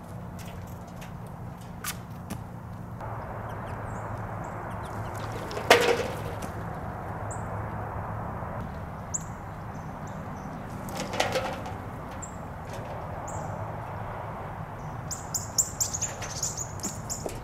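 Wild birds chirping around a backyard bird feeder: short high calls every second or two and a burst of rapid chirping near the end. Two sharp knocks with a brief ring stand out about six and eleven seconds in.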